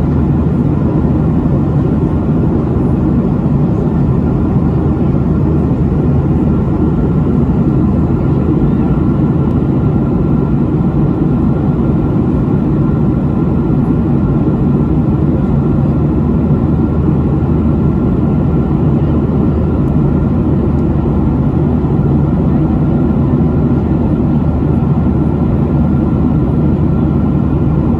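Steady, loud cabin noise of a Boeing 737 jetliner, heard from inside at a window seat: jet engine and airflow noise, deep and even, with no change in pitch or level.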